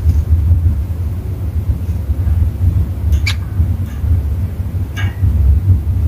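A steady low rumble throughout, with two short chirps from a cockatiel, one about three seconds in and one near the end.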